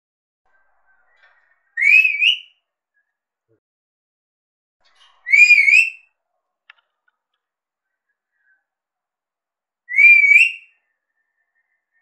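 Alexandrine parakeet whistling: three short whistles a few seconds apart, each wavering up and down in pitch.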